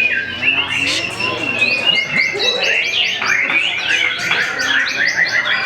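White-rumped shama singing a fast, varied song of whistles and chirps, with a run of rapid repeated high notes in the middle.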